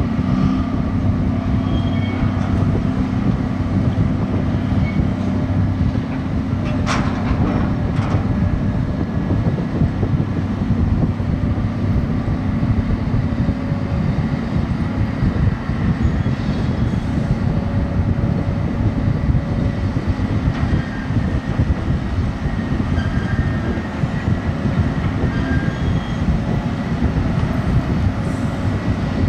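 Grab dredger's crane engine and winches running with a steady low rumble, with two sharp clanks about seven and eight seconds in.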